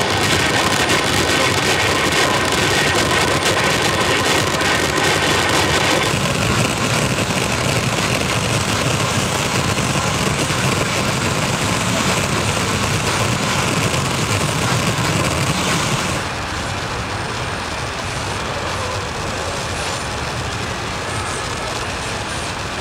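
AM radio static and buzzing interference, caused by flickering fluorescent lamps with glow starters and played through speakers. It is a dense, loud hiss with steady whining tones that changes character about six seconds in, then turns quieter and duller about sixteen seconds in.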